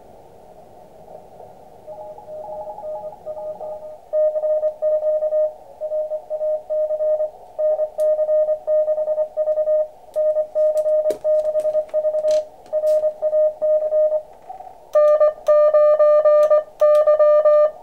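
Morse code (CW) tones keyed on and off from an Elecraft KX2 transceiver's speaker over a band of receiver hiss: a contest station sending. The code comes in faint about two seconds in, turns strong about four seconds in, and is loudest near the end.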